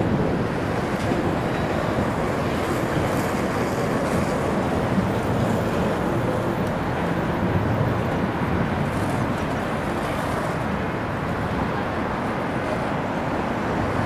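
Steady city street traffic noise: a continuous hum of passing cars, even throughout with no distinct horns or events standing out.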